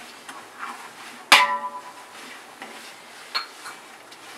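Wooden spatula stirring spices in oil in a large aluminium pot, with light knocks against the pot. A little over a second in, the pot is struck once with a loud metallic clang that rings briefly.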